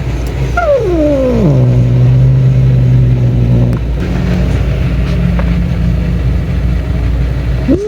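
Domestic cat's long yowl that slides down in pitch into a low, steady growl, which goes on more weakly for a few seconds; near the end a second yowl rises and falls back into the growl. The owner thinks the cat may have stunned himself running into something just before.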